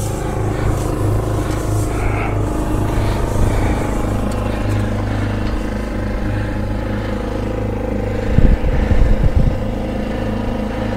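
An engine running steadily at an even idle. A few louder low rumbles come about eight and a half to nine and a half seconds in.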